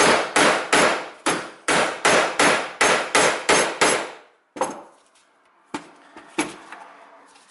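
Claw hammer striking a knife wedged into the seam of a BMW electric coolant pump's housing, about three even blows a second, to split the housing apart. The blows stop about four seconds in, and a few lighter knocks follow as the parts are handled.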